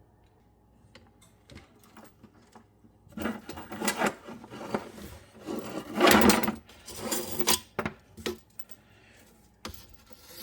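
Handling clatter: a cluster of irregular rattles, scrapes and knocks of things being moved and set down, starting about three seconds in and loudest near the middle, after a near-silent start.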